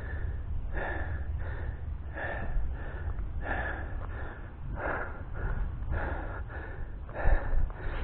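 A person breathing hard close to the microphone, breaths in and out following one another about every half second to second, with wind rumbling on the microphone.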